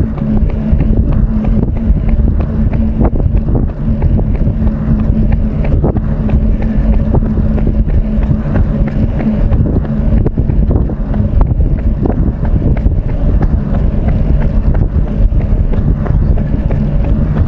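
Heavy wind buffeting on a microphone carried by a runner at tempo pace, a dense low rumble with a steady low hum under it.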